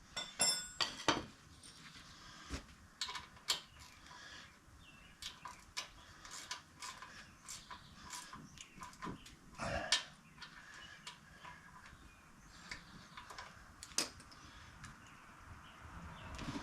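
Scattered metallic clicks, clinks and knocks of tools and wheel parts being handled during a motorcycle tire change, a few louder knocks among them.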